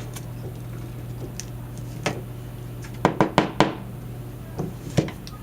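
Small hard clicks and taps of hand tools and tiny phone parts against a work surface during an iPhone 4S teardown. A single click comes about two seconds in, then a quick run of four about three seconds in, and one more near the end.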